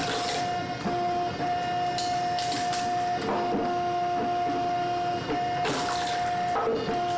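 Steady mechanical whirring: a machine running with a constant hum broken by brief gaps, with clicks and rattles over it.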